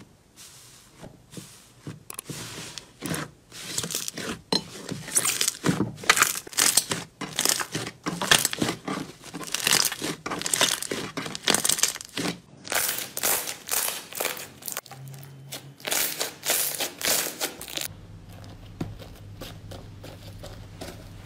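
Slime kneaded and squeezed by hand, making a dense, irregular run of crackling pops. Near the end it drops to a faint steady hum.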